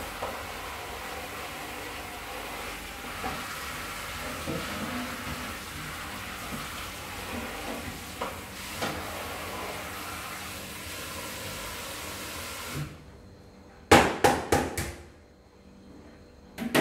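Pot of seaweed and pork soup boiling on a gas burner, a steady hiss that cuts off suddenly about three-quarters of the way through. A quick run of four or five sharp metal clatters of cookware follows, then one more near the end.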